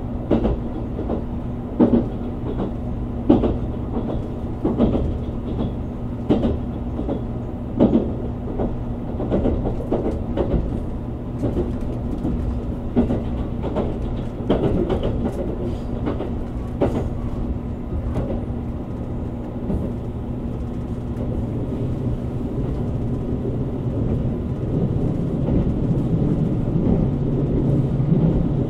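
A JR Kyushu 787 series electric limited-express train running, heard from inside the passenger car. There is a steady rumble and hum, with rail-joint clacks about every one and a half seconds at first that later become scattered. The rumble grows louder near the end.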